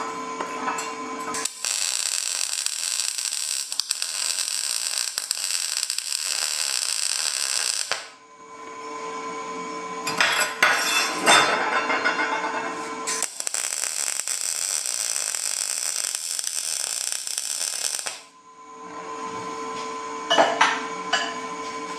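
Wire-feed welder arc running on galvanized EMT conduit: two steady, crackling runs of about six and five seconds, with clicks and knocks from handling the metal between and after them. The slightly raspy, popping edge to the arc comes from the zinc coating on the conduit burning off.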